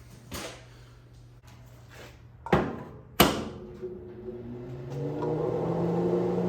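A few sharp clicks and clunks, the loudest about three seconds in, then about five seconds in a stick welder powers up from a newly wired outlet and starts a steady hum that grows louder.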